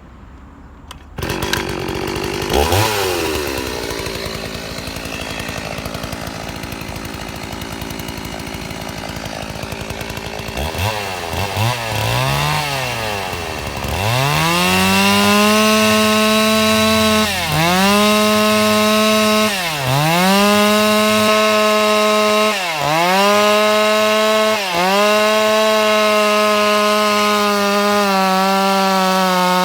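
A two-stroke chainsaw starts about a second in and runs unevenly at low speed, is revved up and down a few times, then runs at full throttle from about halfway on. Its engine pitch dips sharply four times as the chain bites into the mango wood.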